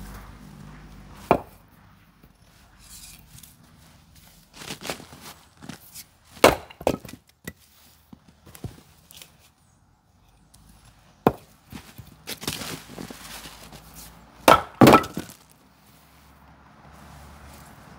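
Fiskars Isocore 8 lb splitting maul striking and splitting firewood rounds on a chopping block, with wooden knocks from the pieces being handled. The sharp knocks come one at a time with pauses between, and the loudest are two blows in quick succession about three-quarters of the way through.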